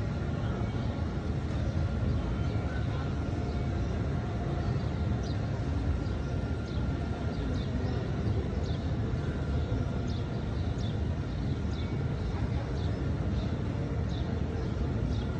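Steady low rumble of open-air ambience, with faint short high chirps of small birds recurring from about five seconds in.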